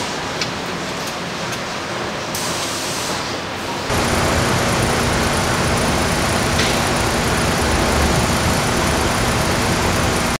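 Car assembly plant noise: a steady hiss of machinery and air that jumps louder and fuller about four seconds in, with a low steady hum underneath.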